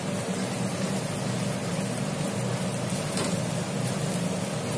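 Sweet vermicelli simmering in syrup in a wok while a wooden spatula stirs it, over a steady low hum and hiss.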